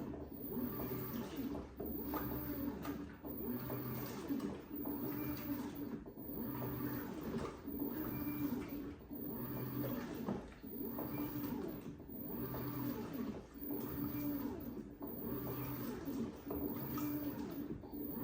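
LG WT16WV6 top-loading washing machine agitating a load of towels: the motor hums in repeated strokes of about a second each, with short breaks between them, over the sound of water churning.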